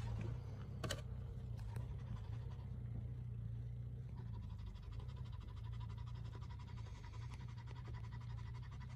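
Off-road vehicle engine running low and steady at crawling speed, heard from inside the vehicle, with a single knock about a second in.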